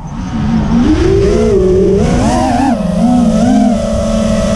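FPV quadcopter's motors and 3.5-inch propellers whining, the pitch rising about a second in, wavering up and down with the throttle, then steadying. A low rumble of wind on the onboard camera's microphone runs underneath.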